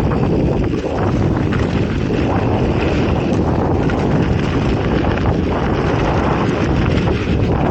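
Wind rushing over an action camera's microphone as a mountain bike rides a dirt trail, with the tyres rolling over rough ground and a steady scatter of small knocks and rattles from the bike.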